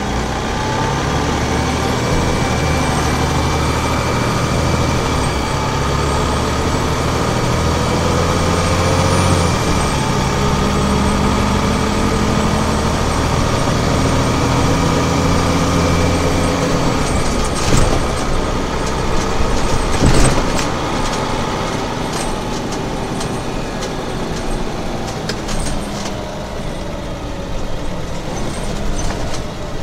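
The Scania DSC9 diesel engine of an articulated Scania OmniCity city bus running under way. Its note rises and falls in steps through the first part, and it settles lower after a few sharp knocks about 18 and 20 seconds in.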